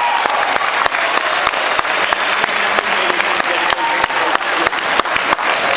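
Crowd applauding: steady, dense clapping from many hands, with some louder single claps standing out.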